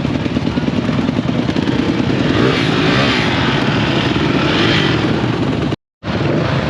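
Enduro dirt-bike engines running, with a bike's engine note swelling louder for a few seconds in the middle. The sound cuts out for a moment near the end.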